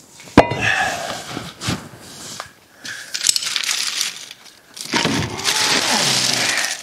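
A sharp metal clank as the old cast iron brake rotor is set down, then handling noise: a few smaller knocks and long spells of scraping and rustling, loudest in the last couple of seconds.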